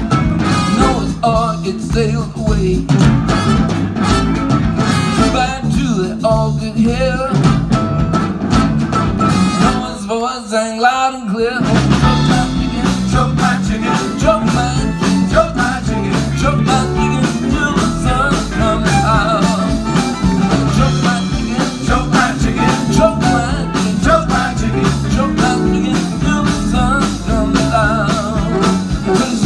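Live band with acoustic guitar, cello, horns and drums playing a bluesy song, with a male lead vocal. About ten seconds in the bass and drums drop out for a moment, then the full band comes back in.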